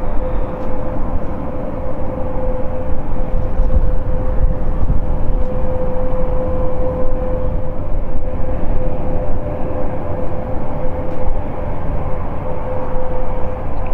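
Four Europrop TP400-D6 turboprop engines of an Airbus A400M running as it taxis, a steady drone with one constant tone over a low rumble.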